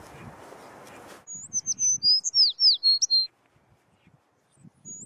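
A bird singing: a phrase of quick, high, mostly descending whistles lasting about two seconds, then repeated the same way after a short pause. Before the song, a soft rushing noise cuts off suddenly about a second in.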